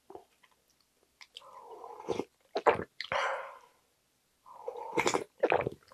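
Close-up slurping and sipping of cold jjambbong broth and noodles from a wooden ladle: several wet slurps, the loudest a little under three seconds in.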